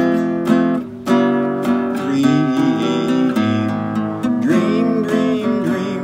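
Nylon-string classical guitar strummed in chords, a stroke about every half second, with a man's voice singing along from about two seconds in.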